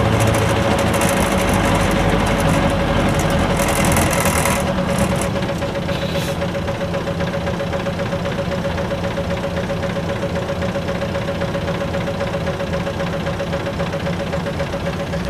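Isuzu Cubic city bus's V8 diesel engine heard from inside the cabin: road noise while rolling for the first four or five seconds, then the engine idling steadily once the bus stands still, with a constant whine over it.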